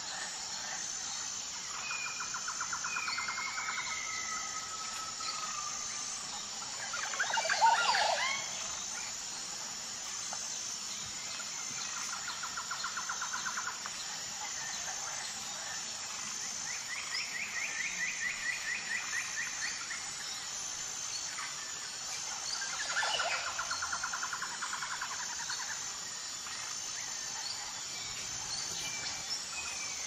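Rainforest ambience: a steady, high-pitched insect drone in regular pulses, with birds trilling over and over. Twice, at about 7 seconds and again at about 23 seconds, a louder sweeping call rises and falls; the first is the loudest sound.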